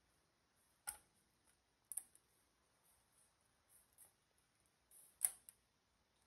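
Raw chicken drumsticks set down in a disposable aluminium foil pan: a few short taps and crinkles of the foil, with quiet in between.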